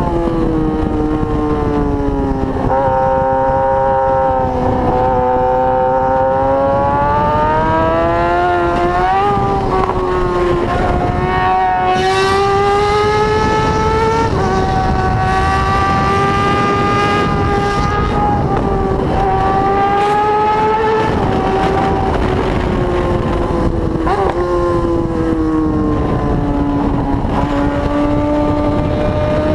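Four-cylinder motorcycle engine running at high revs, its pitch rising and falling again and again with the throttle, with a quick blip about two-thirds of the way through.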